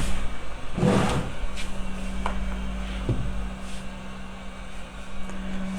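Hot air rework gun running with a steady low hum, over a few light clicks of tools on the work surface and a louder rustling knock about a second in.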